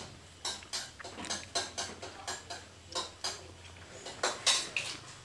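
Uneven run of light clicks and knocks from kitchen or table utensils, about three a second, with one louder knock near the end.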